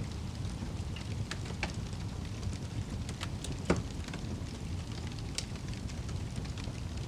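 Wood fire in a fireplace, burning logs crackling over a steady low rumble, with scattered sharp pops and one louder pop about halfway through.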